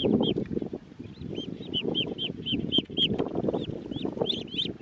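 Ducklings peeping in a quick string of short, high calls, several a second, while they are grabbed and lifted by hand, with rustling of grass and handling noise underneath.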